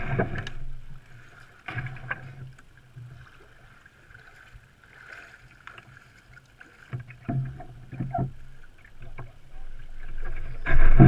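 Kayak hull scraping and grinding over sand and gravel in several separate bursts, with footsteps crunching on the shore; the loudest burst comes near the end.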